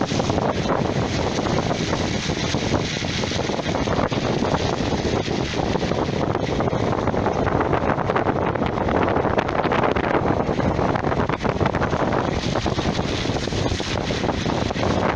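Wind blowing across the microphone: a steady, loud rushing noise.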